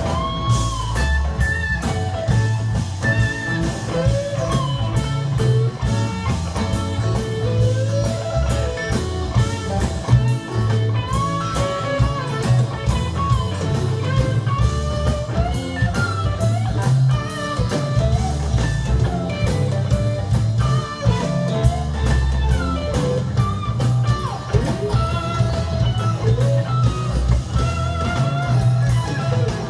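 Live rock band playing through a stadium sound system: an electric guitar plays a lead solo with bending, gliding notes over bass and drums.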